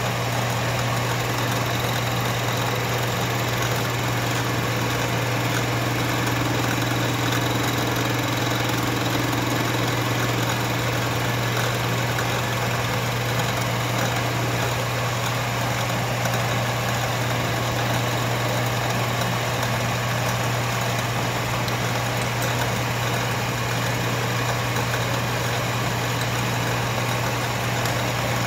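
Metal lathe running with a fly cutter spinning in its chuck, facing a small steel block held on a milling attachment: a steady machine hum with a constant low drone. The light cuts are flattening the block's convex face.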